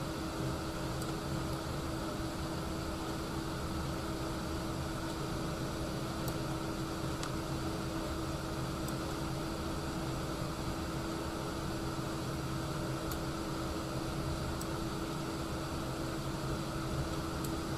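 Steady background hiss with a low, even electrical-sounding hum, broken by a few faint ticks.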